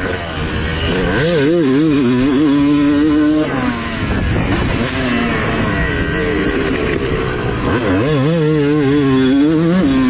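Yamaha YZ two-stroke motocross bike engine, recorded onboard, ridden hard on the throttle. The revs climb with a wavering pitch, drop about three and a half seconds in, and climb again near the end.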